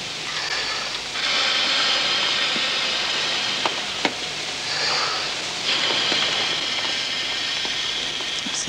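Air blown by mouth through a tube into an inflatable plastic air splint on a leg: a steady rushing hiss in long blows, easing off about a second in and again a little past halfway, when breath is taken, with a couple of faint clicks in the middle.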